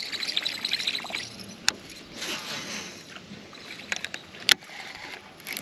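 Baitcasting reel being cranked to retrieve a lure, a fast ticking whine for about the first second. Then a spell of hiss and a few sharp clicks, the loudest near the end.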